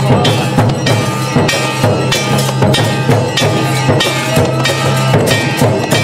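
Music with a steady beat of drums and ringing percussion strikes.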